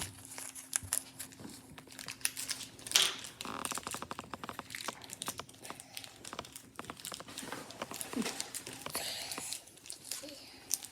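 Toy packaging crinkling and rustling in the hands, with bits of tearing, as a small mystery toy is worked out of a wrapper that is hard to open.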